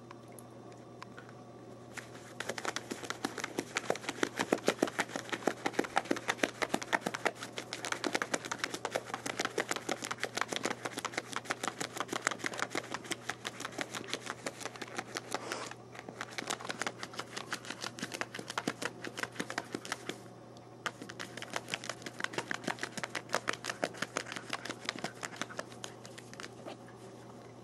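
A dog's claws scratching and digging fast at snow, a rapid run of scrapes that starts about two seconds in and stops briefly twice.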